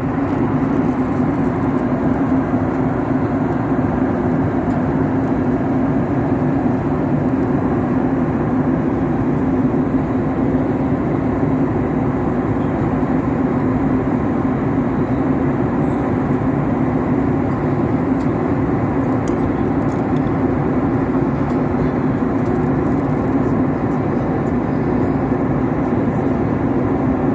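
Airliner cabin noise in cruise flight, heard from inside the cabin: a steady, even rush of engine and airflow noise with a low hum under it.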